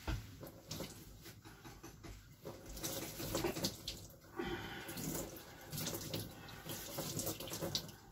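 Kitchen tap running, the water splashing unevenly as things are rinsed under it, with a few light knocks.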